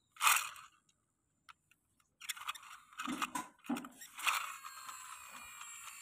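Plastic toy road roller pushed by hand over dirt and grass: crunching and scraping, with a few knocks of the toy on the ground. A single sharp knock comes just after the start.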